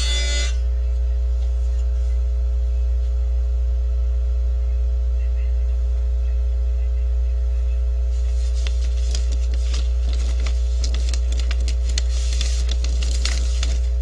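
Paper rustling and crackling as a folded letter is handled and opened, starting about eight seconds in, over a steady low electrical hum.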